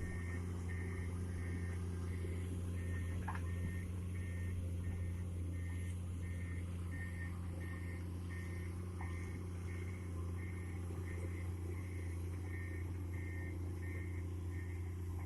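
Excavator's diesel engine running steadily while its travel alarm beeps about twice a second, the warning sounded as the machine moves on its tracks.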